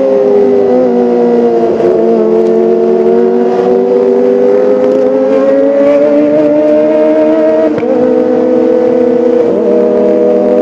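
Kawasaki ZX-25R's 250 cc inline-four engine running at high revs: its pitch drops about half a second in, climbs slowly until about eight seconds in, dips briefly, then holds steady.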